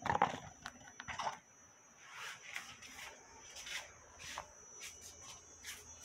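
Scattered short rustles and sharp clicks from household items being handled, the loudest about at the start, over a faint steady high-pitched whine.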